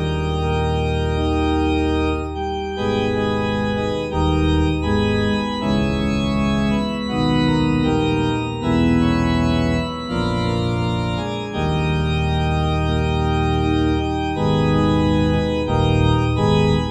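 Pipe organ voice of a Yamaha Novus NV10 digital piano, played from the keyboard alone without pedals. It plays held chords that change every second or two, with brief breaks between phrases.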